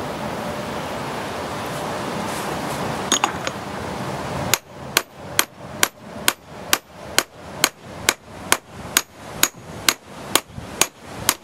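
Steady hammer blows, about two a second, begin about four and a half seconds in. They drive the new pitman arm onto the shaft of a Chevy Blazer steering gearbox. Before them there is only steady background noise and a couple of light metal clinks.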